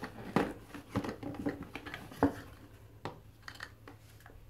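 Cardboard lipstick packaging handled by hand: a string of taps, knocks and rustles, with two sharper knocks near the start and about two seconds in, then fainter rustling.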